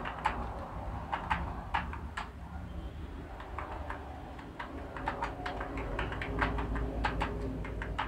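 Computer keyboard keys clicking in irregular runs of typing, over a low steady hum.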